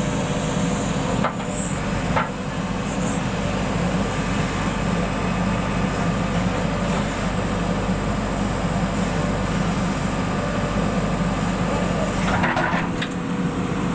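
JCB 3DX backhoe loader's diesel engine running steadily, heard from inside the cab while the backhoe arm swings on its hydraulics. A couple of short knocks about a second and two seconds in.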